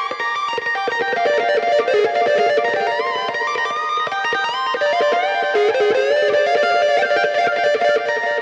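Instrumental rock music led by an electric guitar tone playing a melody, with quick notes and smooth pitch slides between them.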